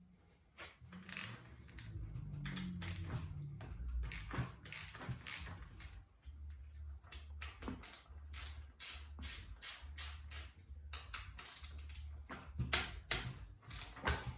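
Socket ratchet clicking in repeated runs of back-swings as the front fork pinch bolts and axle nut of a dirt bike are loosened.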